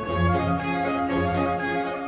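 Baroque orchestral music with bowed strings, played by a period-instrument ensemble, shifting from note to note.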